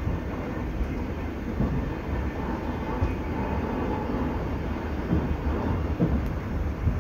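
Steady rumble of a moving passenger train heard from inside the carriage, with a few short knocks from the wheels on the track.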